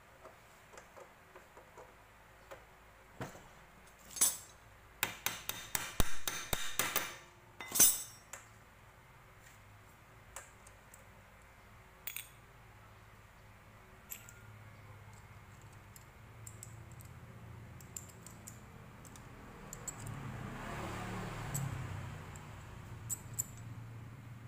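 Small metal engine parts clinking and clicking as they are handled by hand at the motorcycle's open right-side crankcase cover, a quick cluster of sharp clinks about four to eight seconds in, then only scattered ticks. A faint low rumble swells and fades near the end.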